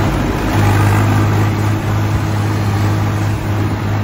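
Diesel tractor engine running steadily as the tractor drives along, heard from on board, with a constant low note.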